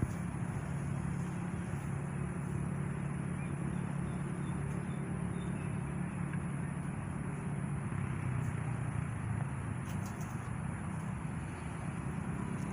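Steady low rumble of distant road traffic, even throughout, with a faint thin high whine above it.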